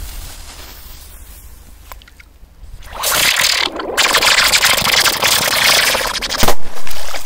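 A "rose with bang" firecracker hissing loudly for about three and a half seconds, then a loud bang near the end.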